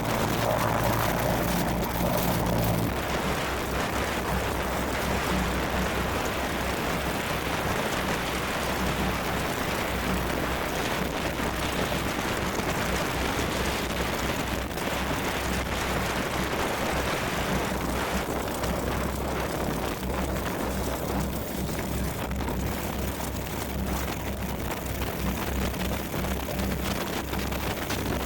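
Piper PA-30 Twin Comanche's twin piston engines and propellers droning steadily under a broad rushing noise. The low engine tone shifts about three seconds in.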